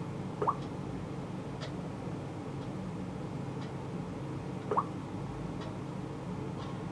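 Samsung Galaxy Note 4's water-drop touch sound, twice, about four seconds apart, as the touchscreen is tapped through setup. Faint ticks about once a second run beneath.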